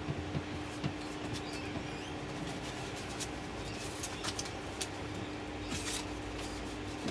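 Quiet room background with a steady hum, scattered faint clicks and a brief rustle about six seconds in.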